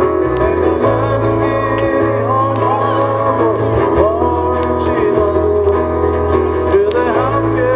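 A man singing a slow folk ballad live into a microphone while strumming an acoustic guitar, with a steady bass underneath, through a stage sound system.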